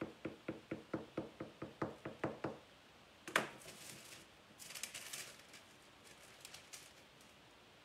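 A bench scraper chopping down through a slab of cookie dough onto the counter to divide it: about a dozen quick, even knocks, roughly five a second, then one sharper knock and a short rustle of parchment paper.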